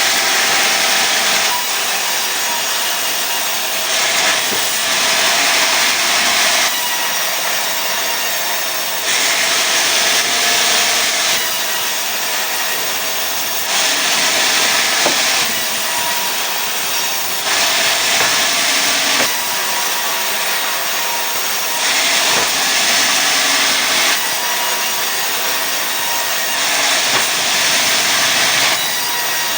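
Sawmill saw running steadily and cutting pine into boards. Louder stretches of about two seconds recur roughly every four to five seconds.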